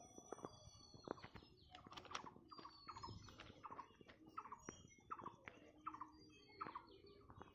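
Faint birdsong from several birds: many short chirps and squeaky calls, scattered throughout.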